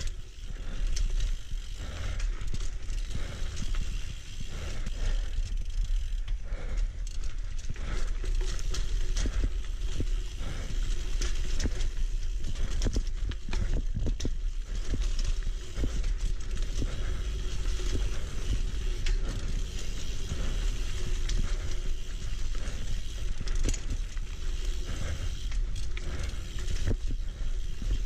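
Single-speed mountain bike ridden on a dirt singletrack: tyres rolling over the trail with many short rattles and knocks from the bike over bumps, over a deep rumble.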